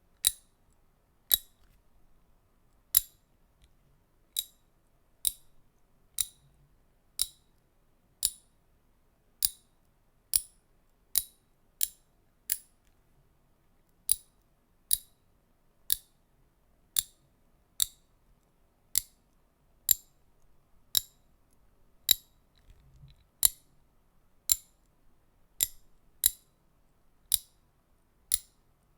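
A ratchet clicked slowly, one sharp click at a time, roughly once a second at slightly uneven spacing, with quiet between the clicks.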